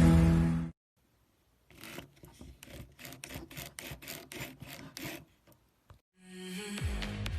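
Quick rubbing, rasping strokes, about three or four a second for a few seconds, between one music track cutting off and another starting near the end.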